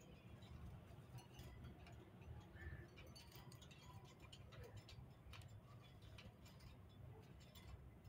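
Near silence from a pair of caged Indian ringneck parakeets: faint scattered ticks and clicks, more of them in the second half, and one faint short note about two and a half seconds in.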